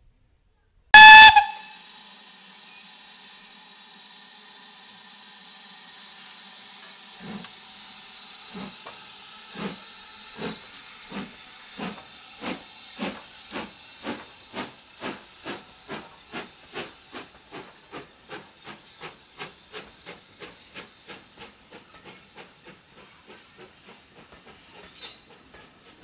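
BR Standard Class 4MT tank locomotive 80151 starting away under steam. About a second in there is a short, very loud whistle blast, then a steady steam hiss. The exhaust beats come in slowly and quicken steadily to about three a second as the engine pulls out.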